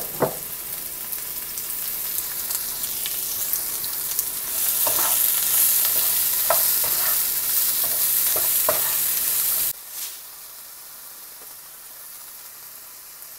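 Sliced mushrooms and bell peppers sizzling in a hot nonstick frying pan while a plastic spatula stirs them, with a few scrapes of the spatula against the pan. The sizzle grows louder about four seconds in and drops abruptly to a quieter sizzle near ten seconds.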